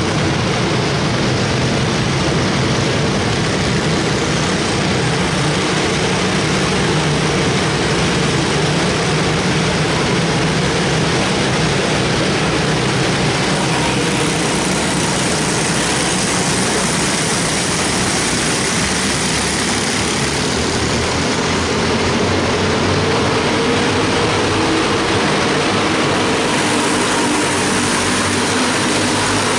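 Engines of a pack of small single-seat race cars running together as they lap the oval, a steady dense buzz that shifts slightly in pitch as the cars go by.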